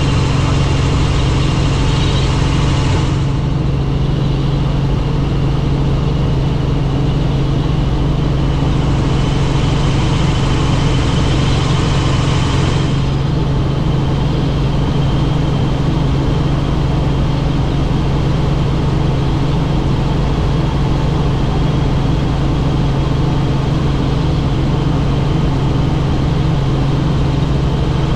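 Helicopter running with a loud, steady drone of rotor and engine and a thin high whine above it.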